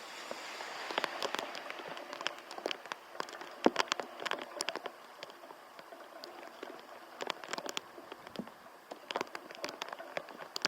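Typhoon rain: irregular sharp drops spattering close to the microphone over a steady hiss of falling rain.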